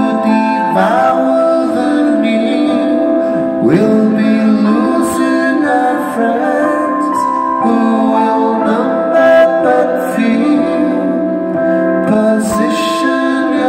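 A live rock band playing on stage: electric guitars and drums, with a man singing into the microphone, heard from the audience through the venue's sound system.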